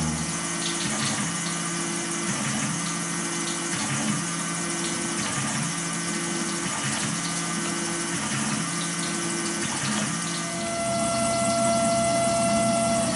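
A Tormach 770 CNC mill's end mill cutting a Glock 26 Gen 5 steel slide under flood coolant, with coolant pouring and splashing over the cut. The machine runs with a faint repeating pulse about once a second, and a steady whine comes in near the end.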